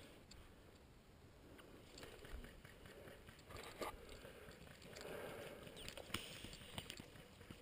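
Near silence: faint outdoor quiet with a few scattered soft ticks and light rustling.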